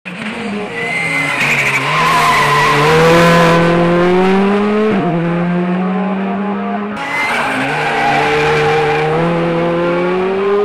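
Skoda Fabia R5 rally car's turbocharged four-cylinder engine pulling hard at full throttle, its note climbing steadily, with a sharp gear change about five seconds in. A couple of seconds later the engine note climbs again.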